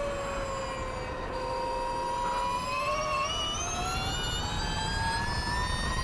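Onboard sound of a Ducati V21L electric MotoE racing motorcycle: the whine of its electric motor and drivetrain dips slightly in pitch, then rises steadily from about halfway through as the bike accelerates. Wind rush rumbles underneath.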